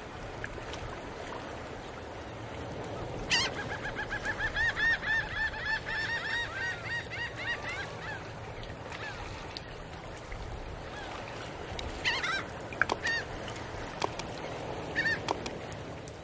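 A bird calling in a quick run of repeated calls, about four a second, for some four seconds, then a few short calls again near the end, over a steady background noise.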